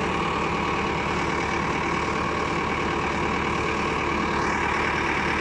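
Valmet tractor's diesel engine running steadily while its front-loader hydraulics swing a homemade sack tipper sideways.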